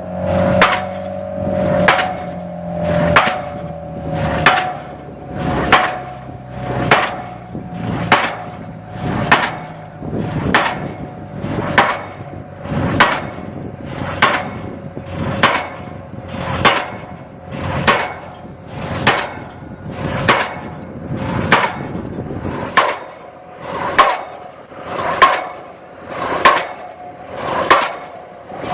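Pile driver driving a pile: sharp, evenly spaced hammer blows, about one every 1.2 seconds, over a steady machine hum.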